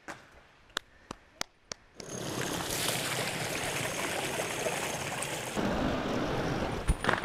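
Wind buffeting the microphone, a steady rushing noise that starts about two seconds in after a few sharp clicks.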